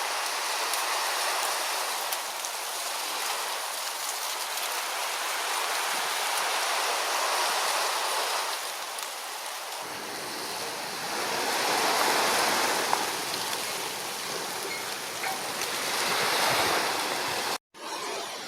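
Water rushing and washing, swelling and easing every four to five seconds, with a brief dropout near the end.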